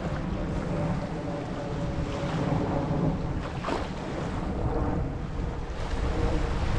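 Gulf of Mexico surf washing onto the beach in a continuous swelling wash, with wind buffeting the microphone.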